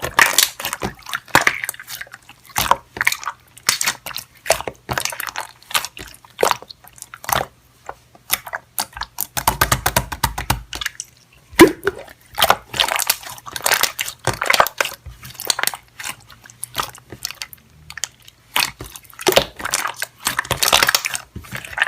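Slime being squished and pressed by hand: a dense run of irregular wet clicks and pops.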